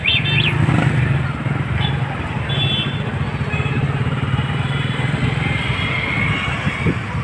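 Street traffic heard from a moving vehicle: a steady low engine hum with road noise, and a few short high chirps at the very start.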